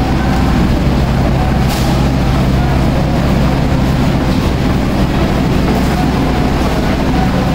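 Steady low engine hum of a diesel passenger train standing at the platform, with a single sharp click about two seconds in.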